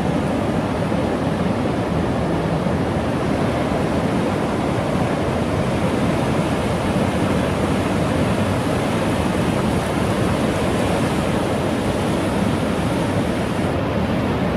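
Ocean surf breaking and washing up the beach in a steady, unbroken rush, with wind buffeting the microphone.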